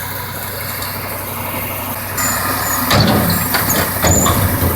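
Truck engine running steadily; from about three seconds in, a truck-mounted loader crane clanks and knocks several times, with short high squeaks, as it is worked.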